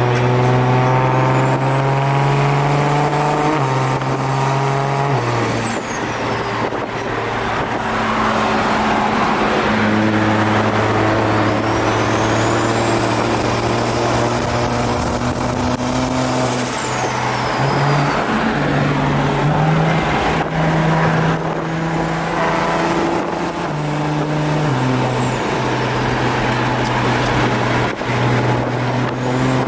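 A rap song playing, its sustained bass notes changing in steps every few seconds, over the steady noise of a car on the road.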